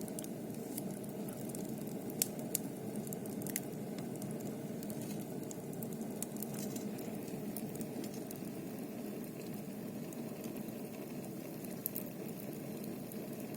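Small wood-burning stove with its door shut, the fire drawing hard and humming with a steady low drone. A few faint crackles come in about two to three and a half seconds in and again near the end.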